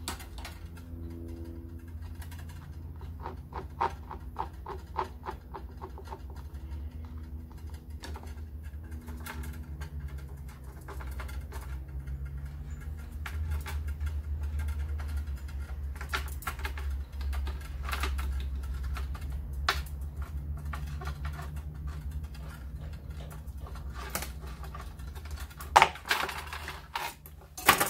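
Handheld tube cutter being turned round a copper brake pipe to cut it: runs of light clicks and scrapes over a steady low hum. About 26 seconds in comes a sharp knock, the loudest sound, as the cutter is set down on the bench.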